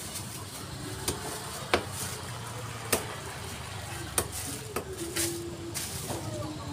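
A cleaver chopping chicken on a wooden chopping block: several sharp, unevenly spaced chops. Plastic bags crinkle as chicken pieces are packed, over a steady low hum.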